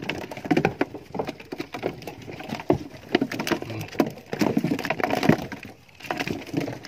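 Irregular knocks, clatter and rattling from a plastic bucket of freshly caught mackerel being gripped by its wooden handle and shifted about.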